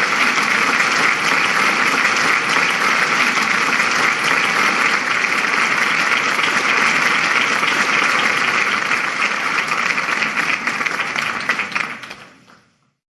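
Loud, dense applause of many hands clapping, steady for most of the stretch and fading away near the end.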